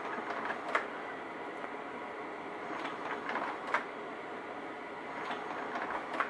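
Vivitar 5000AF slide projector changing slides in reverse: sharp mechanical clicks and clatter of the slide-change mechanism, once a little under a second in, a cluster around three to four seconds in, and again near the end, over the projector's steady running hum. The changes go smoothly.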